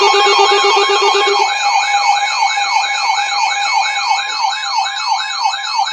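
Emergency Alert System alert tones: a steady two-tone attention signal with a rapid rising-and-falling siren warble over it, about three sweeps a second. A lower buzzing tone drops out about a second and a half in.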